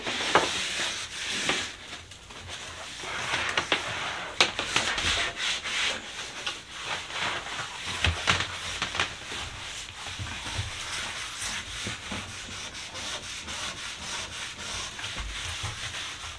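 Scrubbing a tile floor by hand: a run of rasping rubbing strokes, louder and spaced out at first, then quicker and more even through the second half.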